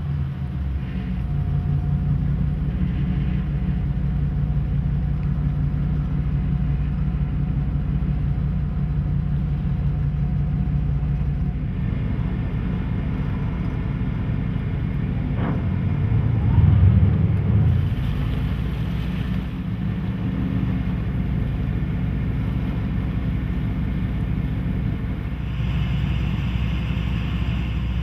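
Tugboat engine running steadily with a low, even drone, its tone shifting about twelve seconds in and swelling louder for a second or two around seventeen seconds.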